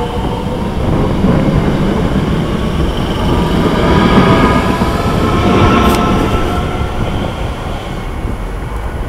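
Class 465 Networker electric multiple unit running under power: a steady rumble with a faint traction-motor whine that rises slowly in pitch through the middle, easing off a little near the end.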